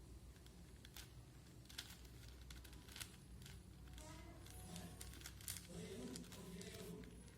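Faint scattered clicks and clacks of a 4x4 Rubik's cube's layers being turned by hand. A faint background voice joins from about four seconds in.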